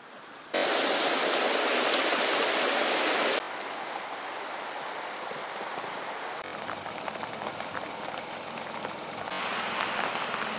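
Steady rain falling, with an even hiss and faint patter, in spliced segments. A loud downpour starts abruptly about half a second in and cuts to softer rain about three seconds in. The rain grows a little louder again near the end.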